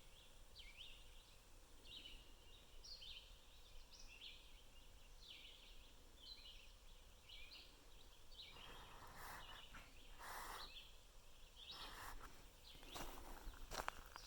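Faint high chirps repeating about twice a second. From about eight and a half seconds in, footsteps on the ground take over.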